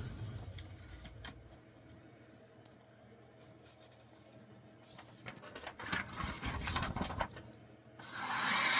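A 1x30 belt sander's motor hum fading away over the first two seconds, then a few quiet handling clicks and rubs. Near the end comes a short, loud rasping slice of a sharpened knife cutting through copy paper in a sharpness test.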